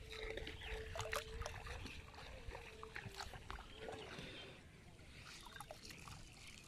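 Faint sloshing and trickling of shallow water with a few small clicks and rustles, as hands work fish out of the mesh pouch of a collapsible ring net trap.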